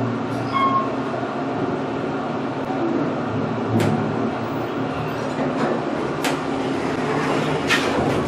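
Elevator cab travelling up its shaft: a steady low hum of the hoist machinery with rushing air noise. There is a short beep about half a second in, and a few sharp clicks later on.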